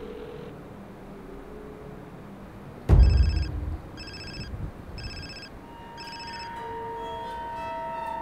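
A sudden heavy low thud about three seconds in, then a smartphone ringing: four short electronic rings about a second apart. From about six seconds, steady held music tones build up under the ringing.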